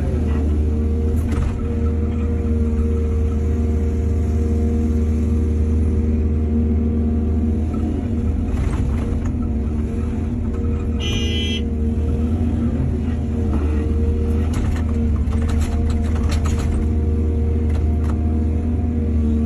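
Excavator's diesel engine running steadily under working load, with a few knocks and clanks and a brief high-pitched squeal about eleven seconds in.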